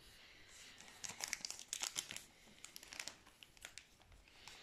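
Foil booster pack wrapper crinkling faintly as it is handled, in irregular small crackles.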